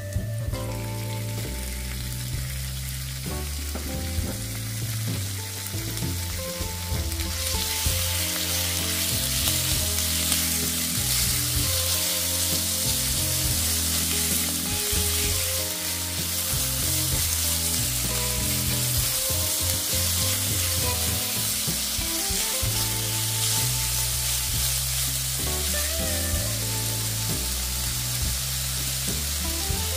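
Chopped chicken thigh pieces frying with garlic and chilli in oil in a wok, a steady sizzle that swells sharply about a quarter of the way in, with light scrapes and clicks of stirring.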